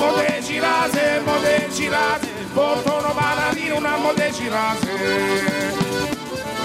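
Pizzica, southern Italian folk music, played live: a man sings over the steady beat of a tamburello frame drum, with accordion.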